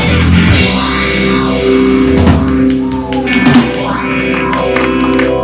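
Rock band playing: electric guitar and drum kit, loud and steady.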